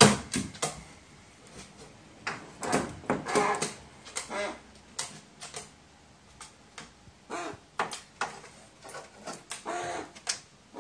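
A loud knock at the start, then scattered sharp clicks and taps, with a pet crow giving short, low calls in between.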